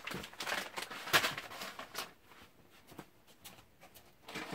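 Rustling and light knocks of packaged pasta side dishes being handled and set down on a wooden shelf, with one sharper tap about a second in; quieter over the second half.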